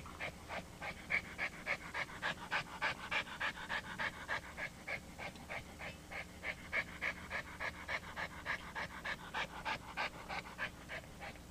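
A dog panting steadily and rapidly, about three to four breaths a second.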